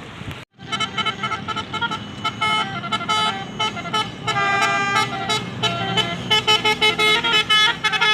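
Indonesian bus's basuri musical horn playing a quick tune of short, rapidly changing notes, starting about half a second in, over the low rumble of the bus engine.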